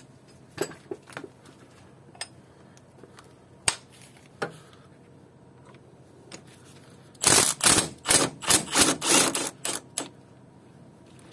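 Impact gun hammering in several short, loud bursts as it undoes a thermostat housing bolt, with a few light clicks before.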